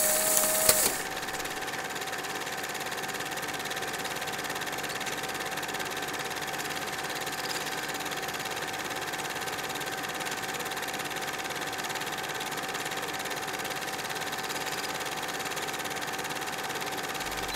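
A short whoosh in the first second, then a steady hum with a constant mid-pitched tone and no change in it.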